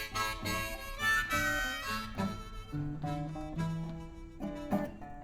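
Blues harmonica playing a sustained, wailing fill over guitar accompaniment, between the sung lines of a slow blues.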